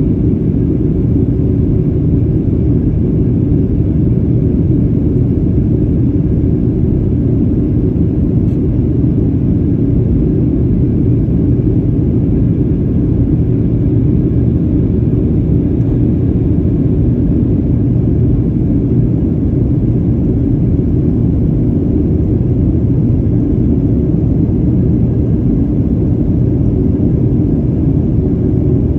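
Steady low roar inside a jet airliner's cabin in flight: engine and airflow noise heard from a window seat over the wing, unchanging throughout.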